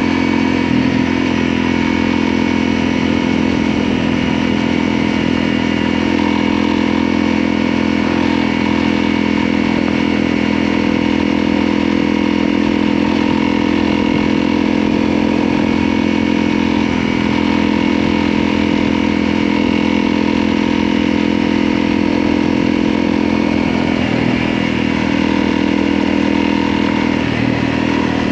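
Motorcycle engine running steadily, its note shifting slightly a couple of times near the end.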